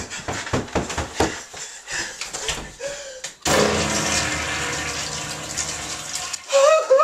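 Toilet flushing: a sudden rush of water about halfway through that runs for about three seconds, after a run of scattered knocks and clicks.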